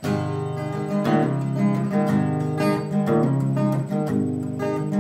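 Acoustic guitar playing a song's instrumental intro: strummed chords over ringing bass notes, starting abruptly with the first chord.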